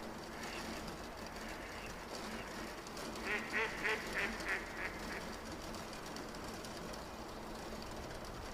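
Domestic ducks quacking: a quick run of about seven quacks a few seconds in, over steady background noise.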